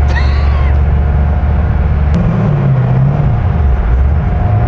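Car engine idling, heard from inside the cabin. About two seconds in the low rumble drops and the idle wavers unevenly, with one sharp click at the change and a steady thin whine running throughout.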